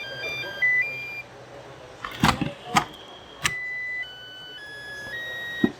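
Makita battery charger's buzzer playing beep tunes: first a quick run of short notes at changing pitches, then a slower tune of longer held notes. Sharp plastic clicks fall between the tunes and one comes right at the end.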